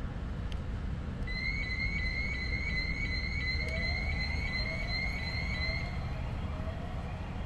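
An electronic alarm beeping in a steady rhythm, about two high beeps a second, starting a second or so in and stopping near the end. A lower rising tone repeats alongside it in the second half. Under it all is a steady low outdoor rumble.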